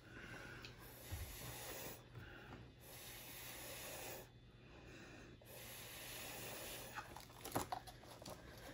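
Air blown through a drinking straw onto wet pouring paint, three breathy puffs of a second or two each with short pauses between, used to push the paint outward. Near the end come a few light clicks and taps.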